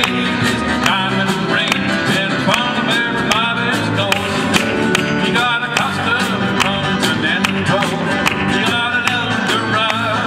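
Live band playing an upbeat rock-and-roll song: acoustic guitars strummed over a steady drum beat, with a voice singing over it.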